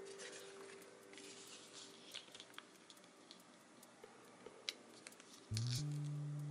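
Paper rustling as pages of a thin printed booklet are turned by hand, with a few small ticks and taps of the paper. About five and a half seconds in, a loud, steady low music note starts and is the loudest sound.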